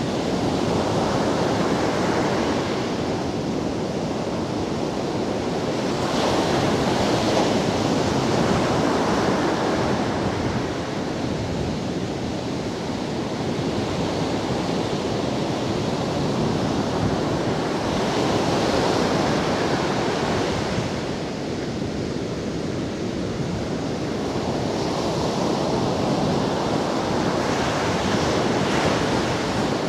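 Ocean surf breaking on a sandy beach, a continuous wash of noise that swells each time a wave breaks and foams up the sand, with some wind on the microphone.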